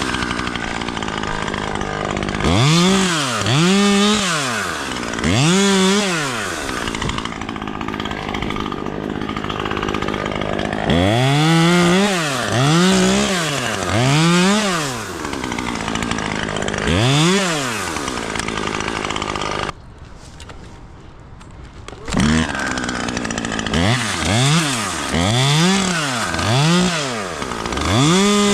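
Chainsaw running and cutting in repeated bursts, its pitch rising and falling with each squeeze of the throttle. It drops out briefly about two-thirds of the way through, then starts revving again.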